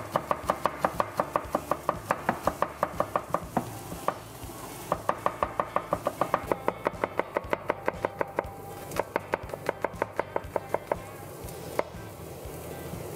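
Chef's knife mincing garlic on a plastic cutting board: rapid, even knocks of the blade on the board, about five a second, in three quick runs with short pauses between, and a single chop near the end.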